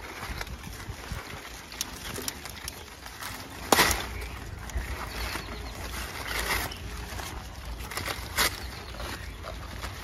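Hand-harvesting pineapples: stiff pineapple leaves and paper fruit bags rustle, with a few sharp cracks as fruit is snapped off the stalks. The loudest crack comes about four seconds in and another about eight seconds in.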